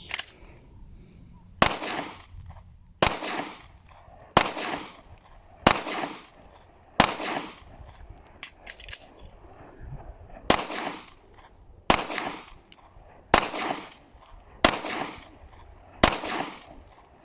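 A handgun fired ten times, each shot with a short echo. The first five come about one every 1.3 seconds, then there is a pause of about three and a half seconds with faint clicks while the magazine is changed, and then five more shots at the same pace.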